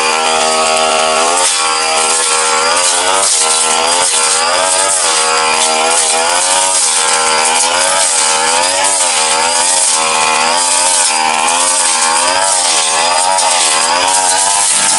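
Tasto TK 328G two-stroke brush cutter running at high throttle while cutting through brush. Its engine note keeps dipping and rising, about once a second, as the blade loads up and frees again.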